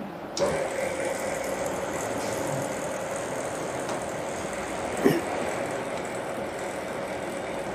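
Electric drive of a pipe forming machine starting up about half a second in and running steadily as it lowers the mold frame on its lead screws: a steady mechanical hum with one constant tone. One short knock about five seconds in.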